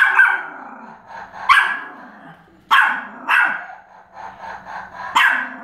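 Pomeranian barking in a series of sharp, high yaps, roughly one every second, with a few softer barks in between.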